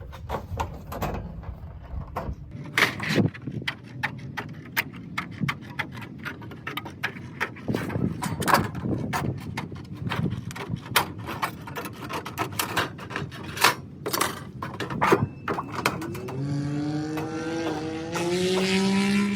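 Tin snips cutting through a sheet of sheet metal: a run of sharp, irregular snips, two or three a second, as the blades close through the metal. Near the end a rising squeal lasting about three seconds.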